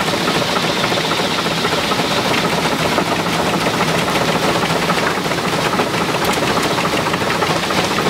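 Steady, rapid mechanical clatter and knocking of engine machinery running without a break.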